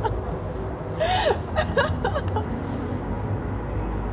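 Steady low rumble of distant city traffic, with a person's brief voice sound about a second in and a couple of fainter ones just after.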